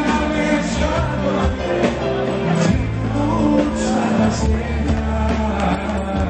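Live band music with a male singer singing into a microphone.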